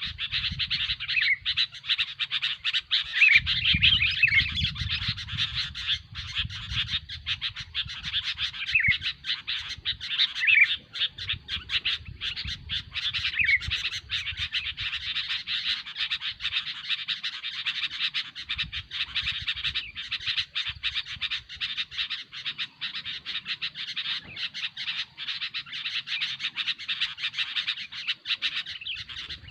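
Sooty-headed bulbuls (kutilang) calling noisily: a dense, continuous stream of rapid short chirps, with a few clearer sliding whistled notes in the first half. A faint low rumble comes and goes underneath.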